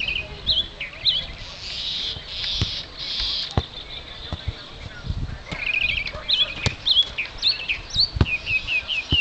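Birds chirping and singing, in many short, quickly repeated notes that sweep up and down, with a few sharp knocks among them.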